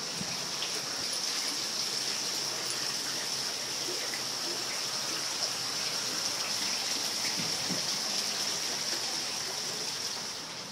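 Water splashing steadily from a tiered outdoor fountain into its pond, a constant hiss that fades near the end.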